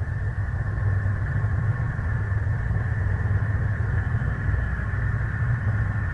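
Steady low mechanical hum with a thin, even whine above it: a sound-effect drone of machinery or a ship's engine. It neither rises nor falls.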